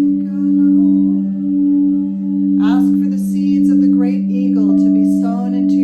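Singing bowls ringing steadily in two low, pure tones that swell and fade about once a second. About halfway through, higher wavering tones join in.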